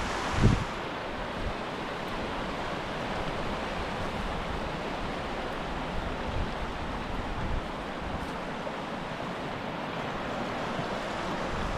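Small mountain creek rushing steadily over rocks, a continuous even wash of water. A low thump about half a second in, with a few softer low bumps later.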